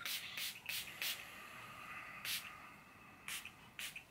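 Hand pump spray bottle misting in short sprays: four quick sprays, about three a second, then three more single sprays spaced out over the next few seconds.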